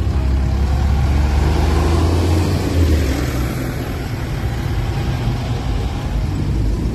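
Farm tractor's diesel engine running as it drives slowly past close by, a steady low drone that fades after about three seconds. A smaller car engine follows as a passing car.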